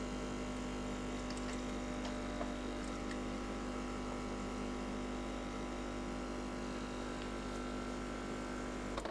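Polaris PACM 2060AC automatic coffee machine running steadily as its pump forces coffee out of the spout into the cup. The sound stops abruptly near the end as the drink finishes dispensing.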